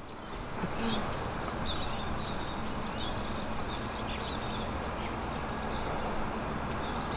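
Birds chirping repeatedly in short, quick calls over a steady low background hum of outdoor noise.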